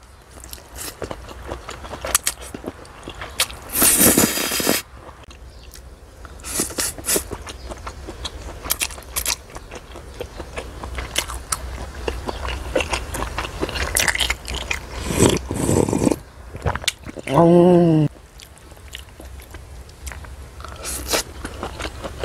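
Close-up mukbang eating: chewing and crunching on sliced conch and noodles, with two loud slurps of noodles, one near the start and one about two-thirds through. A brief hummed voice sound follows near the end.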